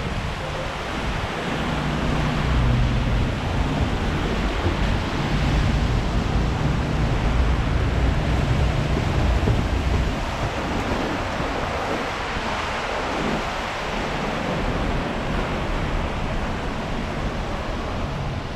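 Steady noisy ambience of an elevated subway station, with a heavy low rumble for the first half that eases about ten seconds in.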